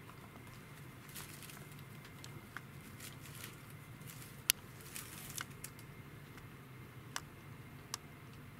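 Scattered small clicks and taps from a corgi licking and nosing at a plastic bin lid lined with a bin bag, with one sharper click about four and a half seconds in, over a low steady hum.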